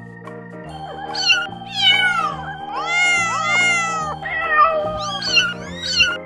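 Young kittens mewing in high, thin calls over background music with steady held notes. The mews start about a second in, several overlapping, and near the end turn into short quick mews, about two or three a second.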